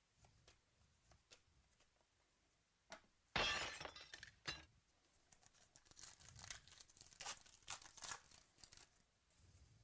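Trading-card pack wrapper torn open sharply about three and a half seconds in, followed by crinkling of the wrapper and light clicks of cards being handled.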